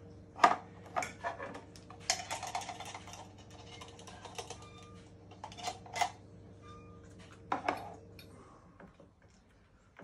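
Metal cutlery clinking and scraping against a glass dish and tin while black cherries are spooned onto sliced apple, in sharp separate clinks with a run of quick rattling clatter about two seconds in. A faint steady hum sits underneath.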